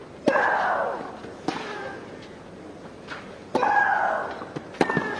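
Tennis ball struck back and forth in a baseline rally: four sharp racket hits, roughly one to two seconds apart. Two of the hits are each followed by a player's drawn-out, falling grunt.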